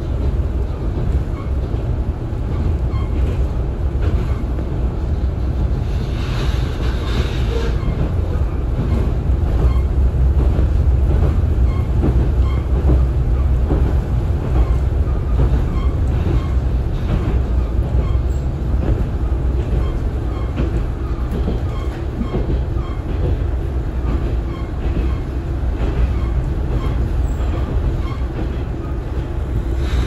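KiHa 40 diesel railcar running at speed, heard from inside the car: a steady low drone of the diesel engine and wheels rumbling on the rails, with a light regular clicking from the track. The hiss swells briefly about six seconds in.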